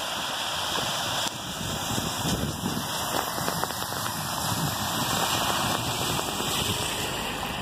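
Honda sedan's tyres swishing and splashing through shallow floodwater over a road as the car approaches and passes close by, over a steady wash of water noise; louder as it comes alongside.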